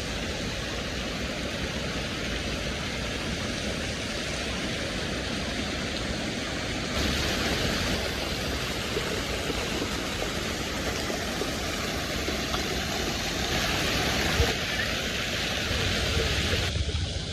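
Fountain water splashing and falling in a steady rush, louder for a stretch about seven seconds in and again near the end.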